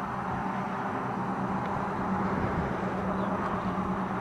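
A steady engine drone with a low hum under a rushing noise, holding even throughout.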